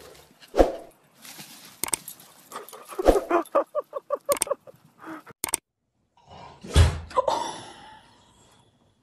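Dogs barking: a single short bark, a quick run of about eight yaps in a row in the middle, and a louder, drawn-out bark a little before the end.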